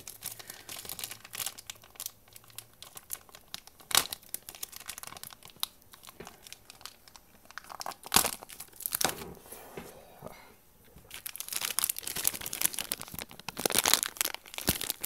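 Plastic packaging bag crinkling and crackling as it is handled and worked open, with a few sharp snaps. The crinkling gets denser and louder toward the end.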